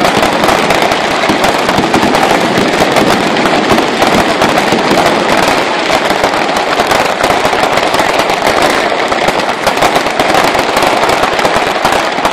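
Fireworks going off in rapid succession: a loud, continuous crackle of many small pops packed close together.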